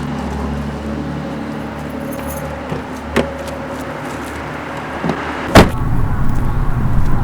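A vehicle engine running steadily, with a click about three seconds in and a loud knock a little after five seconds, after which the engine runs louder and rougher.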